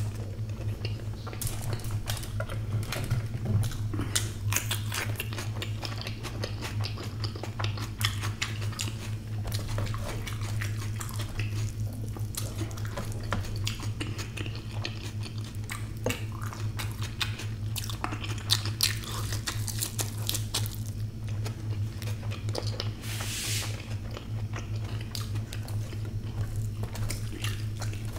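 Close-miked chewing and wet mouth sounds of someone eating fried sunny-side-up eggs: steady smacking and small crackling clicks as he bites, chews and licks his fingers. A steady low hum runs underneath, and a brief hiss comes late on.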